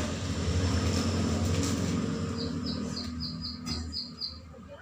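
A low steady motor rumble that fades near the end, with a quick run of about eight high, evenly spaced chirps, roughly four a second, in the second half.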